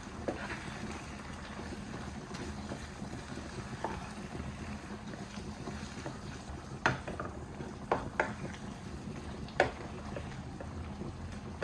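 Steady low rumbling noise with a handful of sharp knocks or clatters, the loudest about seven seconds in and again near ten seconds.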